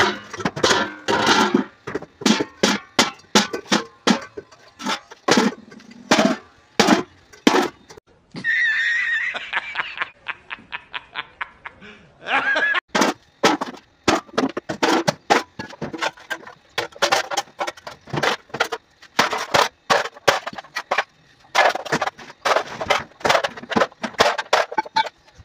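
Repeated hard knocks, roughly two a second and unevenly spaced, from a long metal pole being pounded down. About a third of the way in, a loud edited-in laugh from a man breaks in for a second or two.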